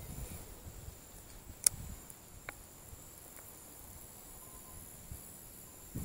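Faint steady high-pitched insect chirring, with one sharp click about a second and a half in and a lighter click about a second later.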